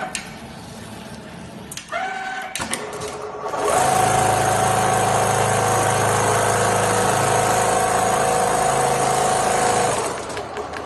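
Richpeace automatic template sewing machine at work: short rising whines near the start and again about two seconds in as its drive moves the frame, then from about four seconds a loud, steady stitching run with a constant hum that stops about a second before the end.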